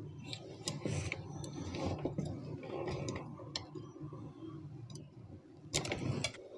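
Small sharp clicks and taps of metal tweezers and the IC's pins against a circuit board as a switching IC is pressed into its holes. The loudest clicks come near the end, over a faint steady hum.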